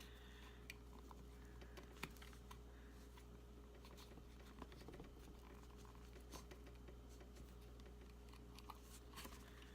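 Near silence with faint, scattered small clicks and scrapes from a Glock 43 magazine base plate being slid along the magazine body by hand, over a low steady hum.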